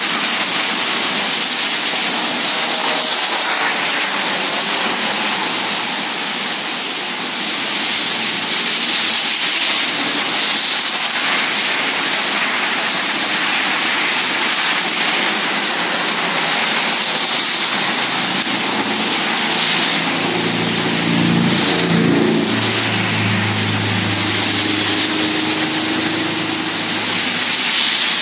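Thunderstorm wind and heavy rain making a loud, steady rushing noise. About two-thirds of the way through, a low engine hum of a vehicle comes in under it.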